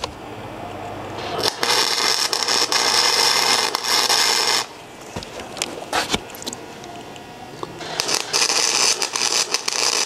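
MIG welding arc crackling and hissing as tack welds are laid on a steel bicycle sprocket, in two bursts of about three seconds each: one starting about a second and a half in, the other near the end.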